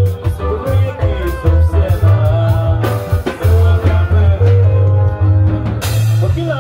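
Live band music through a PA: a man sings into a microphone over a heavy bass line and a steady drum beat.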